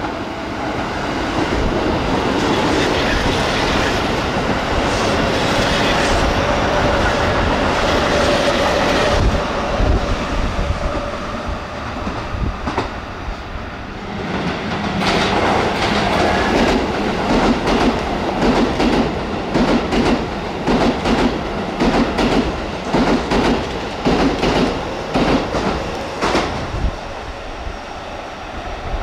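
Two Keisei electric commuter trains passing at about 60 km/h, one after the other. First a 3700-series train runs by with a steady rumble. Then, about halfway through, a 3000-series train passes with a fast, even clatter of wheels over rail joints that thins out near the end.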